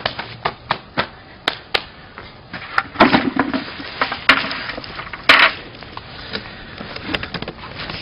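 Handling noise from a camera being picked up and moved: a scatter of sharp clicks and knocks, with louder rustling bumps about three to five seconds in.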